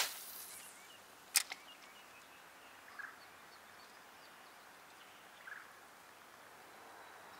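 A fishing rod whooshing through a cast at the start, then a sharp click a little over a second in, followed closely by a fainter one. A couple of small soft sounds come later.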